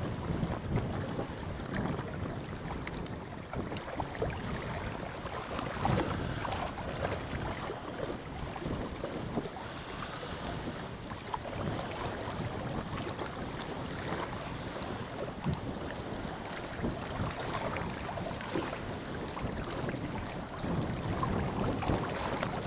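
Small waves lapping and splashing irregularly against shoreline rocks.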